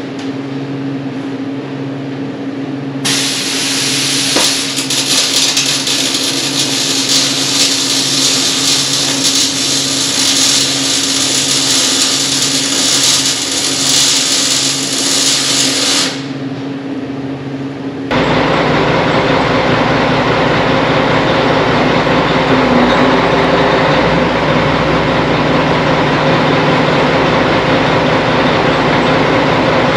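Arc welding steel: a crackling hiss that runs for about thirteen seconds, with the welder's steady hum before and after it. About eighteen seconds in, the sound switches abruptly to a steady, low machine drone.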